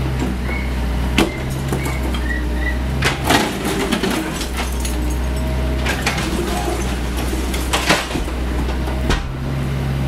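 Caterpillar 304E CR mini excavator's diesel engine running steadily while its bucket breaks down a concrete-block wall. Concrete slabs and bricks crash and clatter down several times, the biggest falls about three seconds in and near eight seconds.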